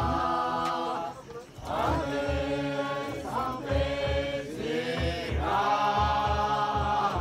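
A group of Naga men chanting together in long held notes, in repeated phrases that each open with a rising glide. A steady low beat of about two to three pulses a second runs underneath.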